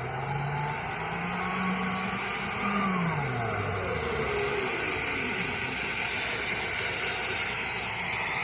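Dryer-vent cleaning brush spinning in the duct on its motor. The motor's pitch climbs, holds, then drops off about three seconds in as it slows, over a steady rush of air. A brush that won't spin up is the sign of a vent still partly clogged with lint.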